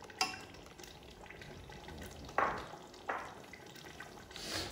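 A steel spoon stirring green chicken curry in a large aluminium pot, knocking and clinking against the pot three times over the soft bubbling of the boiling gravy.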